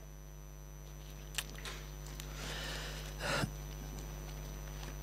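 Quiet pause under a steady low electrical hum, with a light tap about a second and a half in and a soft paper rustle around the middle, as pages are leafed through to find a Bible passage.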